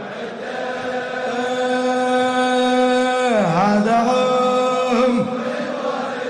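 Male voice chanting a line of an Iraqi-Arabic Shia elegy (latmiya), unaccompanied. It holds one long steady note that slides down about three seconds in, then settles on a second held note that drops away near the end.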